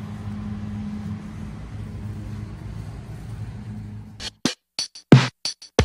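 Swimming pool pump motor running with a steady hum. About four seconds in, drum-machine music takes over, cutting in and out in short choppy bursts.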